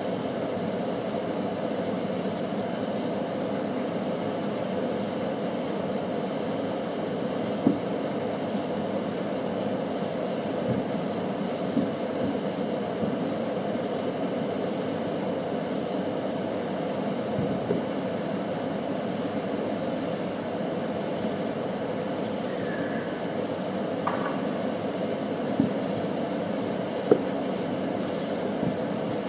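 A few short, sharp distant fireworks bangs, the loudest near the end, over a steady low rumble.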